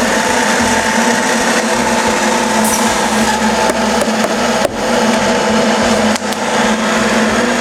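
Weeke Optimat BHC-350 CNC machining center running with its vacuum hold-down engaged: a loud, steady mechanical drone with a constant hum. The level dips briefly twice in the second half.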